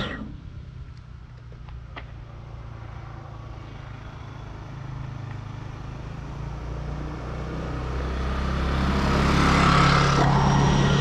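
Motor scooter's small engine approaching along the road, with a steady hum that grows louder over the last several seconds as it draws close.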